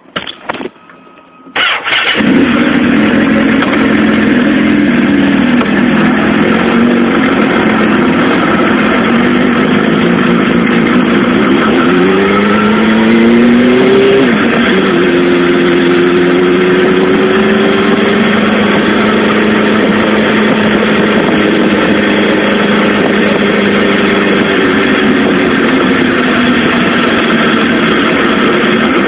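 Suzuki GSX-R SRAD's inline-four engine starting up about a second and a half in, after a few clicks, then running steadily and loudly. Its pitch rises around the middle and then holds steady.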